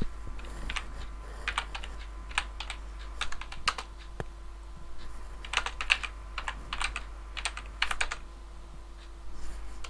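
Computer keyboard typing: irregular keystrokes in short runs with brief pauses between them.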